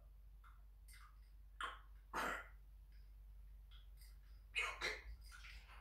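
African grey parrot making a few short, breathy noises: a pair a little under two seconds in and two more near the end.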